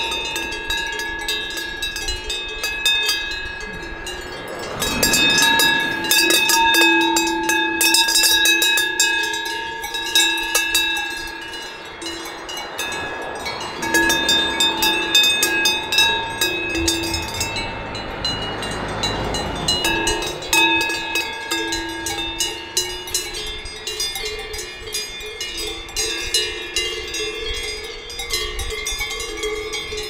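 Cowbells clanking and ringing, the strokes coming thick and fast over lingering bell tones. The ringing drops out briefly past the middle, then resumes.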